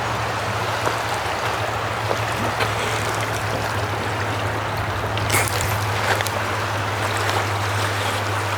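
Swollen, flooded river rushing steadily, an even wash of moving water with a few faint clicks about five seconds in.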